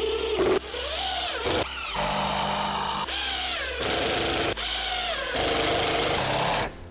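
An electric power tool's motor running, its pitch rising and falling again and again, in a string of short segments that cut abruptly one into the next.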